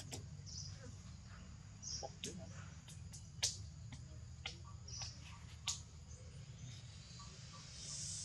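Faint outdoor ambience: scattered short high chirps and clicks over a steady low hum, with a soft hiss swelling near the end.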